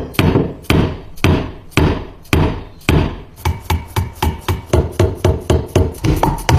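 Repeated hammer blows on stapler parts. The blows come about every half second at first, then quicken to about three a second from midway.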